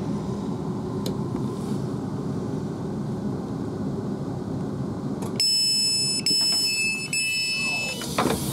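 Steady low hum of the stationary Class 350 electric train, then about five seconds in its passenger door sounds its electronic warning, three long high multi-tone beeps back to back over about two and a half seconds, as the door opens after the Open button is pressed.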